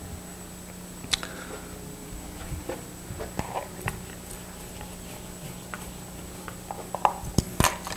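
Room tone with a steady electrical hum and a faint high whine, scattered small knocks and rustles, and a few sharper clicks near the end.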